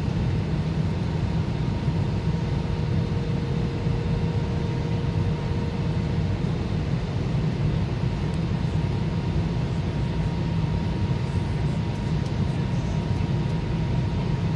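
Airbus A320 cabin noise in flight: a steady low drone of the engines and rushing air, with a faint steady hum over it.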